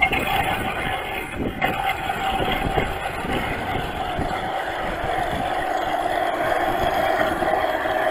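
Model fireboat's Merlin engine sound running steadily, switching on abruptly at the very start.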